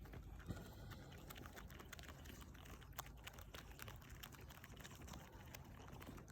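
Backyard chickens pecking and scratching: faint, irregular clicks and taps over a low rumble.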